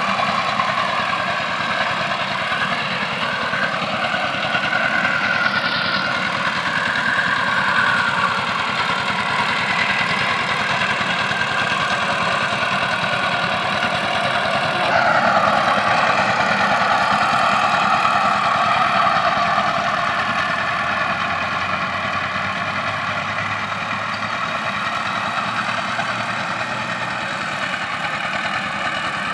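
Two-wheel power tiller's single-cylinder diesel engine running steadily under load as its rotary tines till dry soil. About halfway through the sound changes abruptly and gets a little louder.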